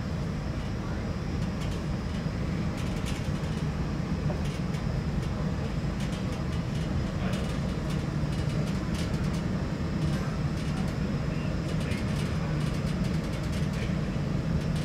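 Airport terminal ambience: a steady low hum with faint scattered clicks and knocks.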